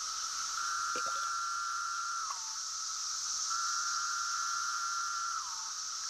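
A chorus of 17-year periodical cicadas. Two long, steady calls stand out, each about two seconds long and dropping in pitch at the end, over a continuous high shrill of the massed chorus.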